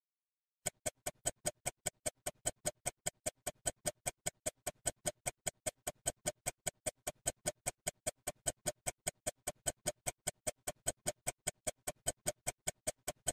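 A sound effect of rapid, evenly spaced ticks, about five a second, starting under a second in. Each tick is short and bright with a slight ring, like a clock or timer ticking fast.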